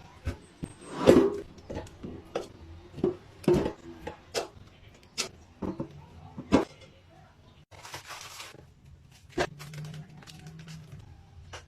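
Scattered knocks, taps and clatter of kitchen utensils and dishes being handled during food preparation, with a short rustling or hissing burst about eight seconds in.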